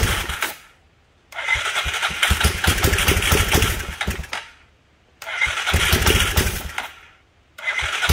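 A four-wheeler's engine cranked by its electric starter in four bursts of one to three seconds, with short pauses between, the starter energised by a hot battery lead tapped onto its terminal. Ether is sprayed into the carburetor to get it to fire, because the carburetor is gummed up.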